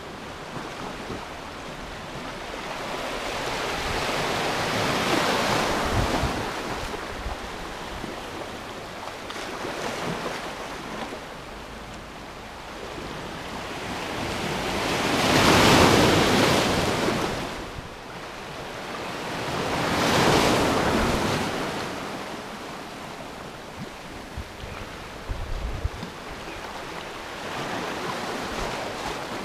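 Sea waves washing in over shoreline rocks, swelling and falling back several times, with the biggest surges about halfway and two-thirds through. Wind buffets the microphone.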